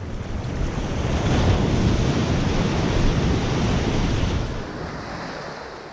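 Ocean surf: a wave breaks and washes up the beach, swelling over the first second or two and then fading away.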